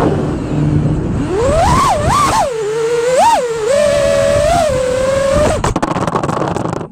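FPV quadcopter's motors whining, the pitch swooping up and down sharply with quick throttle changes. About five and a half seconds in the whine stops and a rough crackling noise follows.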